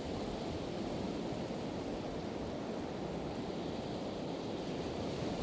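Pacific Ocean surf washing onto a beach: a steady, deep wash of noise with no single wave crash standing out.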